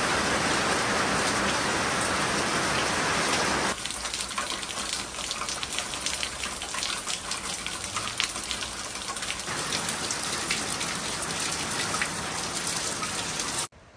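Heavy tropical-storm rain falling steadily. About four seconds in, the sound changes to rainwater running off a roof edge and splattering onto a wooden porch deck, with many separate drips and splashes.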